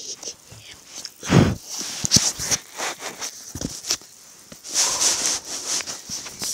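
Irregular rustling, handling clicks and breathy noises close to the microphone as the camera is moved about among bedding.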